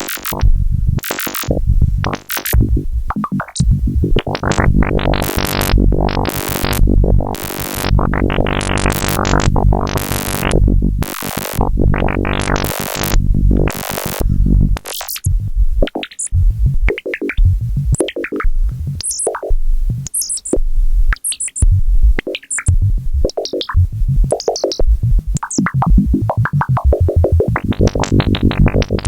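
Modular synthesizer patch playing an electronic sequence of percussive hits and pitched blips. It is dense with loud noisy bursts for about the first half, then thins to sparser high blips.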